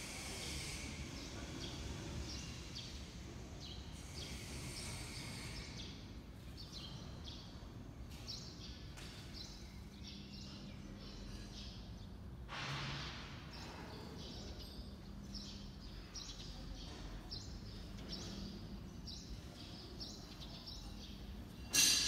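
Factory-hall room noise: a steady low hum with scattered faint short high chirps or ticks, a brief rush of noise about halfway through and a sharp knock just before the end.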